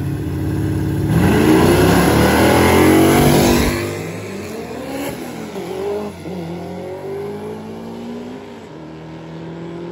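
A Camaro and an MR2 drag car launch from the line at full throttle. The engines are loudest for the first few seconds after the launch, then fade as the cars run down the strip, the pitch rising and dropping back at each gear shift.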